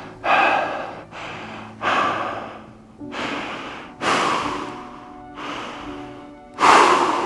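Soft background music with a person's heavy, labored breaths over it: about six loud breaths, roughly one every second, the loudest near the end.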